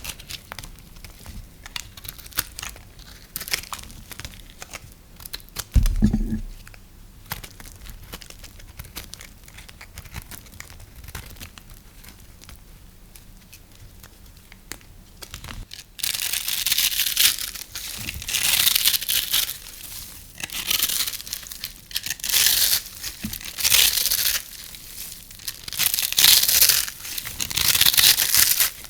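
Dry, brittle soap being cut and crumbled: soft crackling and crinkling, with a dull thump about six seconds in. About halfway through come louder crisp, crunchy strokes, one after another, each lasting a second or two.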